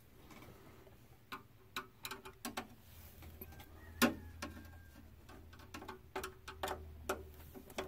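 Screwdriver backing out the screw that holds a graphics card's bracket to the PC case: faint, irregular small clicks and ticks, with one sharper click about four seconds in.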